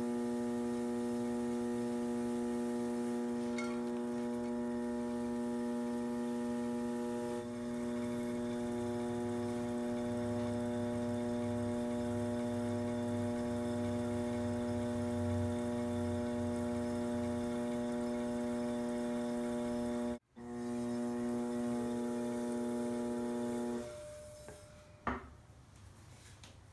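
Electric potter's wheel motor humming steadily as the wheel spins, cutting out for an instant about two-thirds through and stopping near the end, followed by a single click.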